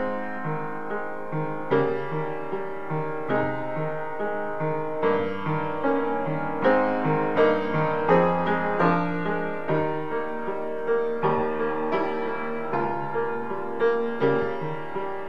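A small Cable-Nelson upright piano being played: a steady flow of chords over a moving bass line, notes struck several times a second and left ringing.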